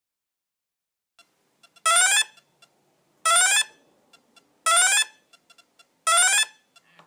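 Hitec Energy Sport brushless ESC sounding its programming-mode indication tones through the motor: four short rising chirps, evenly spaced about a second and a half apart, with faint ticks between them.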